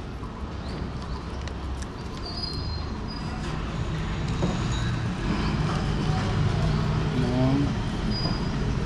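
Steady low rumble of road traffic passing, growing louder about halfway through, with a few faint short high-pitched tones on top.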